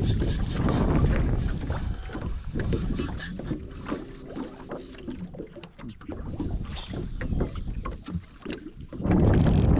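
Wind rumbling on the microphone over a boat on choppy water, with small waves lapping at the hull; a louder gust near the end.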